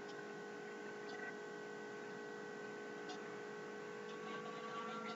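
Steady electrical hum made of several fixed tones, with a few faint clicks.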